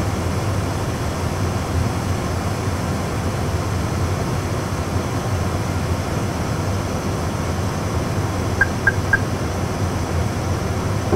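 Steady low hum in an Airbus A320 full flight simulator cockpit while the APU spools up. Three short beeps come in quick succession near the end.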